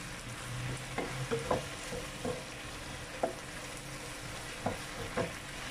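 Broccoli and sliced meat sizzling in a frying pan as a wooden spatula stirs them, with a steady hiss and about half a dozen sharp knocks of the spatula against the pan.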